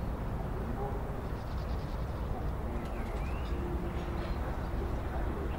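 Outdoor ambience: a steady low rumble with faint bird chirps here and there.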